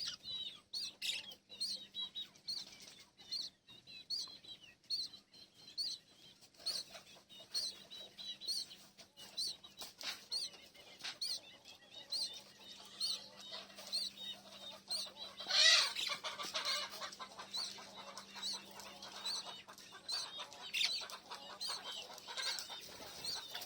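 Small pet parrots chirping: short, high chirps repeating every half second or so, with a louder, harsher burst about 16 seconds in.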